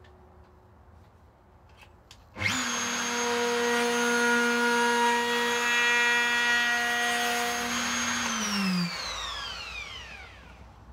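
Handheld electric router switched on with a few faint clicks before it, running at full speed with a steady whine for about six seconds, then switched off and spinning down with a falling pitch. It is making a test cut to check the routing depth in the guitar body.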